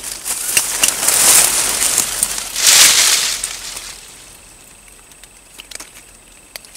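Dry grass and leaves rustling and crackling, with two loud swells in the first three seconds, then fading to faint scattered crackles.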